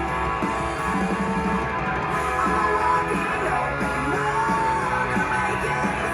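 Rock music playing, with guitar and a singing voice.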